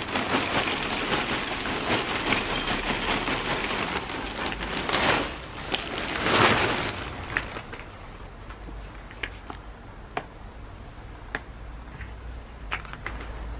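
Lumps of charcoal tipped into a small homemade furnace: a dense rattling clatter for about seven seconds that swells twice, then scattered single clicks and knocks.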